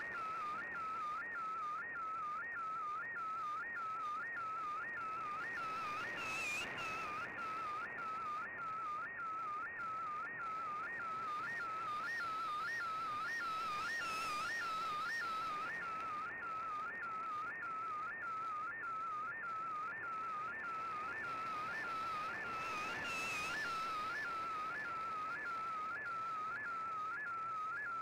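Shortwave image transmission from a Shortwave Radiogram broadcast, heard through an Icom IC-R8600 receiver: a warbling tone that sweeps up and down in the same pattern about twice a second, over static hiss. The noise swells briefly twice.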